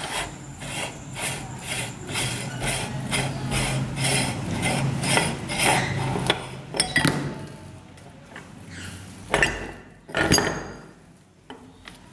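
Metal-on-metal scraping from the locking ring of a hand-cranked meat grinder as it is unscrewed, in regular strokes about two to three a second. In the second half come a few separate metal knocks and clanks as the parts are taken off and set down.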